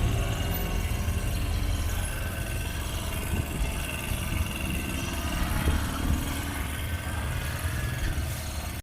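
A steady low engine rumble, like an idling or passing vehicle, under general street noise.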